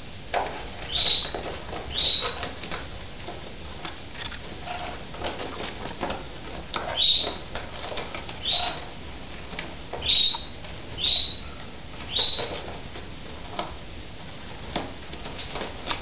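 Paper bag crinkling and tearing as a hawk-headed parrot rummages and chews inside it, with seven short, squeaky parrot calls that each slide up to a high note.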